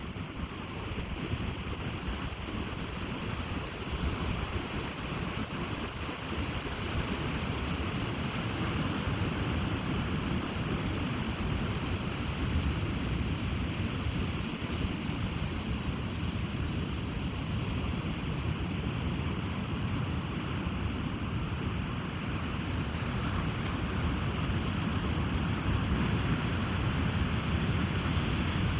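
Ocean surf washing steadily on a beach, with wind buffeting the microphone in a low rumble.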